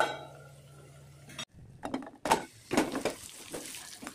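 A low steady hum for about a second and a half, then a steel ladle clinking and scraping against a steel kadai as beans are stirred: several sharp metal clinks, the loudest a little past halfway.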